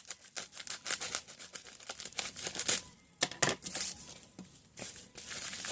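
Paper packaging being opened by hand: quick, irregular crinkling and tearing, with short pauses about three seconds in and again near five seconds.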